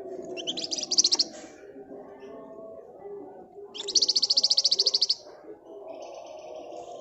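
A spotted crocias (flamboyan, wergan Jawa) singing two loud, dense rattling trills, one near the start and one about four seconds in. Thinner high notes follow near the end, over a fainter continuous chatter of lower notes.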